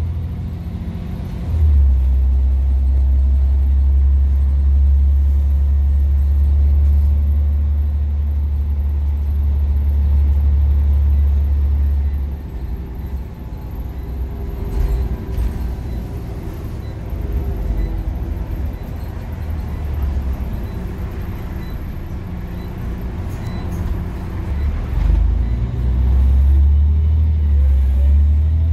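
Scania Omnicity single-deck bus heard from the passenger saloon: a deep engine drone under load, overlaid by the whine of its ZF automatic gearbox. The drone is loud for the first dozen seconds, eases off, and builds loud again near the end.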